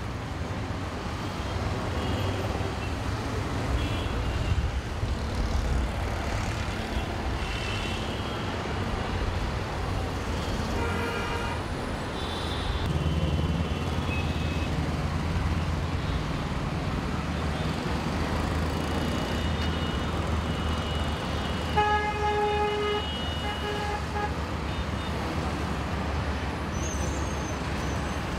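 Heavy mixed road traffic of cars, buses, motorcycles and auto-rickshaws, with a steady low engine rumble. Vehicle horns toot now and then, the clearest a horn blast about two-thirds of the way through.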